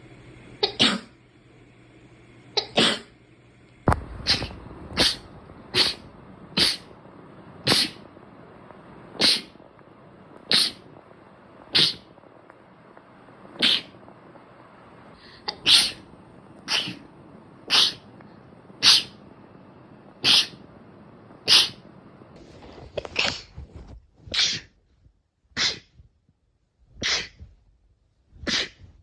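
A long run of short, sharp sneezes, one about every second or second and a half, more than twenty in all.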